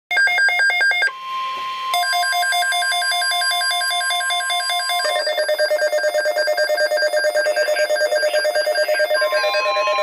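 Several NOAA weather radios, a Midland among them, sounding their alert alarms together: rapid pulsing electronic beeps at a few fixed pitches, overlapping. A steady single tone, the weather radio warning alert tone, sounds from about a second in to about five seconds and comes back near the end, announcing an incoming alert broadcast.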